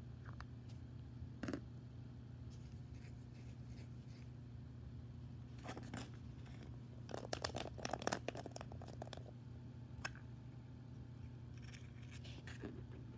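Hands handling and unwrapping toy packaging: a few light clicks, and a short run of quick tearing, crinkling strokes about seven to nine seconds in, over a steady low hum.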